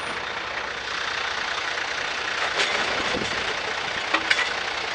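Rear-loader recycling truck's engine idling steadily, with a few sharp clatters of recyclables being tipped into the rear hopper about two and a half and four seconds in.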